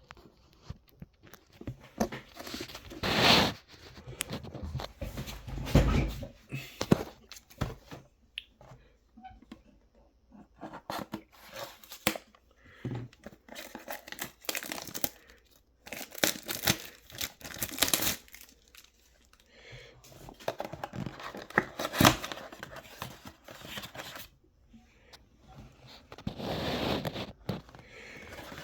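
Plastic wrapping and cardboard of a trading-card box being torn open and crinkled, in irregular bursts of tearing and crumpling with handling clicks in between.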